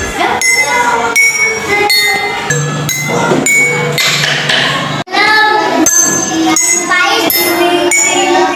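Glass tumblers holding different amounts of water tapped one after another, each giving a short clinking ring at its own pitch, in a quick series of strikes.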